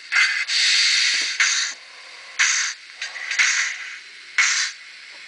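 Sound decoder in a Minitrix S36 N-scale model steam locomotive playing steam-engine exhaust. There is a longer hiss of steam in the first two seconds, then short chuffs about once a second, as for a locomotive moving slowly.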